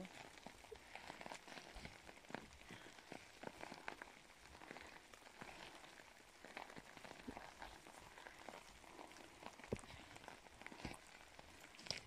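Faint, irregular pattering and ticking of water dripping from melting snow in the trees.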